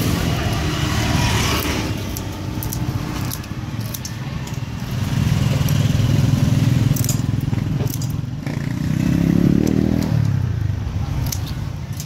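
Street traffic: motor vehicles running past, their engine noise swelling about halfway through and again, rising and then falling in pitch, near the end. Small clicks sound over it.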